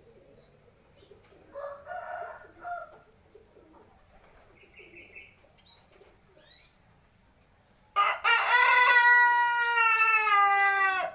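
A seven-month-old ayam buras (Indonesian native) rooster crowing: a few short calls a couple of seconds in, then about eight seconds in one loud, long crow of about three seconds whose pitch sags at the end.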